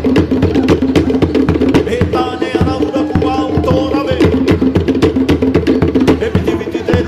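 Fast Pacific island drum-dance music: rapid, sharp wooden drum strokes over deeper drum beats, with a sustained melody running over the rhythm.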